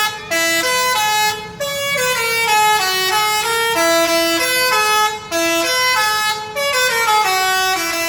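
Basuri 'telolet' musical bus horn playing a tune: a quick run of held horn notes stepping up and down in pitch, broken by a few short pauses.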